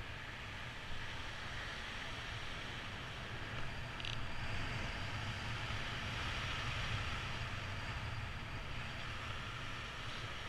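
Airflow buffeting the microphone of a camera carried by a paraglider pilot in flight: a steady noise with no tones, growing a little louder about four seconds in.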